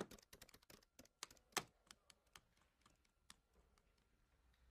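Faint, rapid tapping of calculator keys: quick irregular clicks that thin out after about a second and a half and stop a little past three seconds in.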